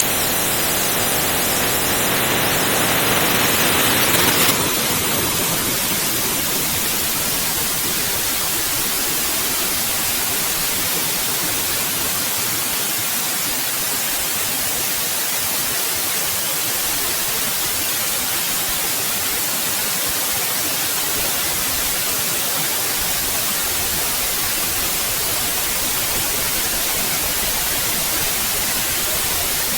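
Steady synthetic white noise, an even hiss spread across all pitches. For the first few seconds it is a little louder and brighter, then about four and a half seconds in it settles into an unchanging, even hiss.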